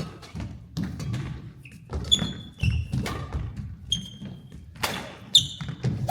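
Badminton rally on an indoor court: court shoes squeak sharply on the floor about four times, between thudding footfalls and sharp hits of racket on shuttlecock.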